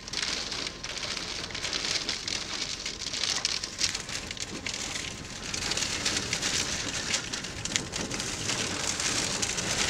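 Rain and strong wind from the thunderstorm feeding the tornadoes: a steady rush of rain with many close drops striking, rising and falling in gusts.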